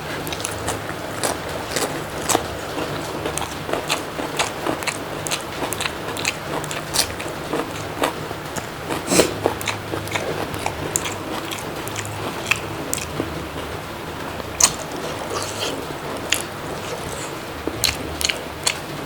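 A person chewing and biting food close to the microphone, with frequent irregular mouth clicks and crunches, over a steady low hum.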